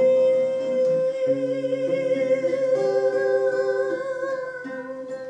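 A woman sings one long held final note, wavering slightly towards the end, while an acoustic guitar picks a few changing notes underneath. The sound slowly fades. The uploader says the guitar is out of tune.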